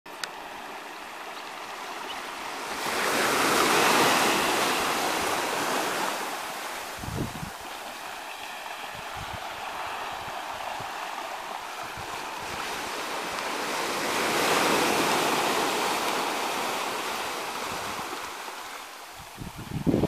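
Small ocean waves washing up on a sandy beach. The surf swells twice, about ten seconds apart, with a steady wash between. A few short low thumps come near the end.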